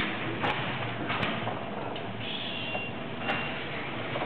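Steady rushing noise of storm wind and heavy sea breaking around a ship, with a few scattered sharp ticks.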